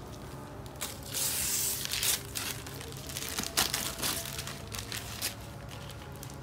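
Gift-wrapping paper being torn off a cardboard box, ripping and crinkling in a series of rustles: a long rip about a second in, then shorter, sharper tears and crumples.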